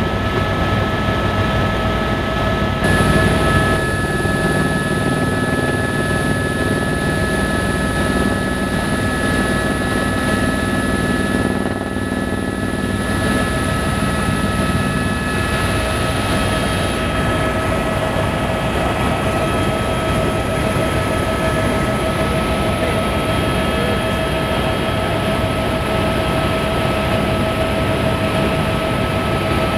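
Helicopter in flight heard from inside the cabin: a steady rotor and engine noise with several steady high tones held over it.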